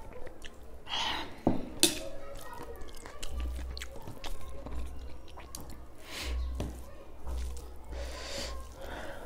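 Slurping soup from a bowl, a couple of sharp clinks about one and a half seconds in, then chewing and the soft squish of rice being mixed by hand on a plate.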